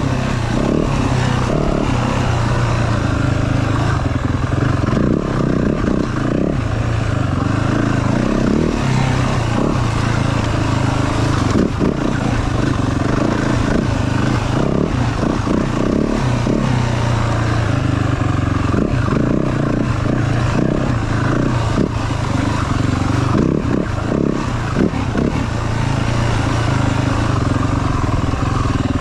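Yamaha WR450F's single-cylinder four-stroke engine running under load, its revs rising and falling, with scattered knocks and clatter from the bike working over rough ground.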